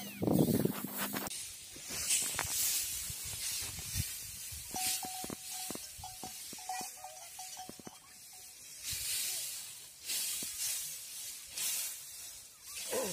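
Dry rice straw rustling and swishing as it is tossed and turned with wooden forks, in repeated separate swishes. A faint thin steady tone with small clicks runs through the middle.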